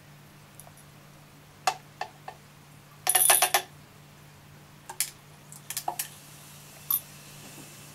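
Small hard pellets dropped into a water-filled glass tank, a string of sharp clicks and clinks against the glass, with a brief rattle about three seconds in. A faint steady low hum runs underneath.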